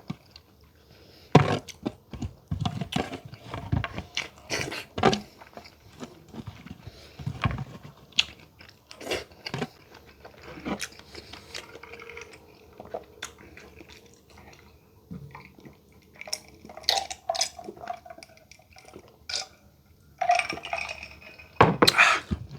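A person eating close to the microphone: chewing and biting with irregular sharp clicks and crunches, and now and then a clink of dishes or cutlery.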